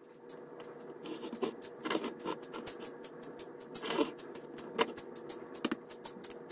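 Hands rubbing shortening into flour in a glass mixing bowl: irregular rustling and scraping of the crumbly dough mixture, with fingers and nails brushing and tapping against the glass.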